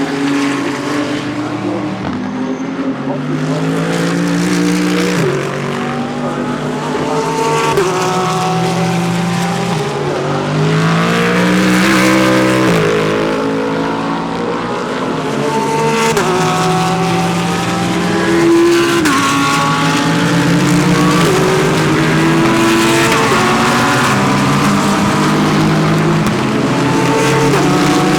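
GT3 race cars passing one after another through a corner, their engines stepping down in pitch through downshifts under braking, then stepping back up through the gears as they accelerate away, several cars overlapping.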